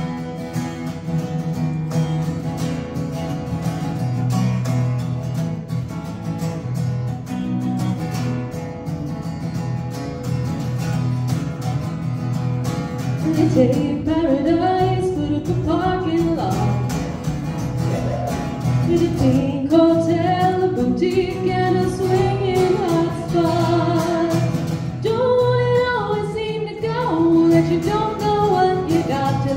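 Acoustic guitar played alone for the first dozen or so seconds, then a woman's voice starts singing over it and carries on to the end.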